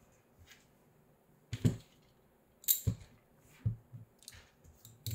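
Hands handling a 3D-printed plastic motor clamp, small bolts and a stepper motor on a workbench: about four short clicks and knocks at uneven gaps, the first one loudest.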